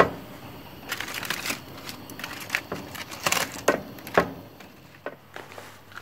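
Aluminium foil crinkling and rustling as it is pulled open by hand around a tray of roasted sweet potatoes, in a run of quick crackles lasting about three seconds before it dies down.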